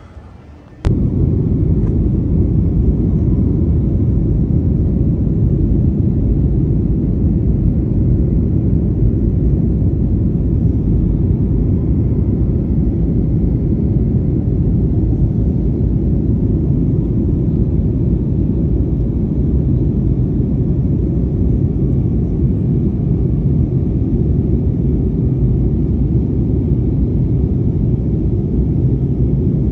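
Jet airliner cabin noise in flight, heard from a window seat: a loud, steady low rumble of engines and rushing air. It starts abruptly about a second in.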